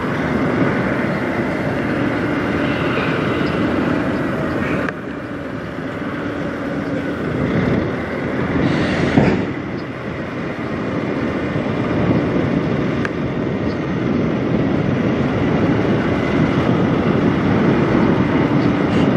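Kenworth semi truck's diesel engine running as the tractor-trailer rolls slowly, a steady rumble with a low hum. The level drops suddenly about five seconds in, and a brief hiss rises about nine seconds in.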